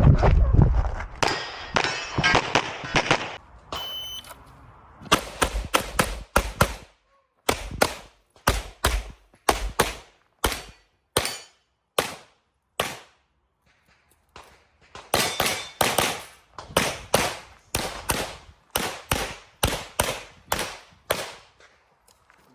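Handgun shots fired in a rapid string of dozens of sharp cracks, often in quick pairs, with a short pause about two-thirds of the way through. The string starts about five seconds in, just after a short electronic beep like a shot timer's start signal.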